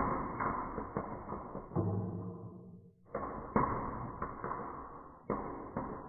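Marbles rolling and rattling down a wooden marble run, with sharp knocks as they drop and hit the track; each run of rolling fades away and a new one starts with a knock, three times.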